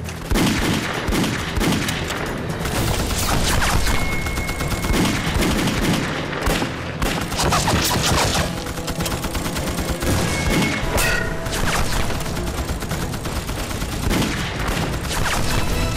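Sustained battle gunfire: dense, rapid volleys of rifle and automatic-weapon shots overlapping one another without a break.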